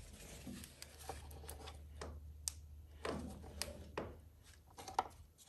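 Faint scattered clicks and light taps of hand tools being handled, with a few sharper taps in the second half, over a low steady hum.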